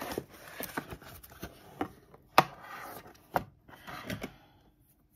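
Cardboard mailer box being opened by hand: a run of sharp taps and clicks from the lid and flaps, the loudest snap about two and a half seconds in, with rustling of the packaging between them.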